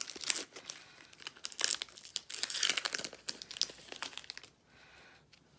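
Plastic wrapper of a Magic: The Gathering booster pack crinkling and tearing as it is ripped open by hand. The crackling stops about four and a half seconds in.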